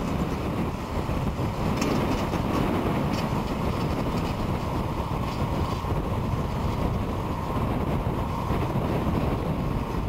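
New Holland TM165 tractor's diesel engine working steadily under load as it pulls a reversible plough through the soil, with a faint steady whine above the engine.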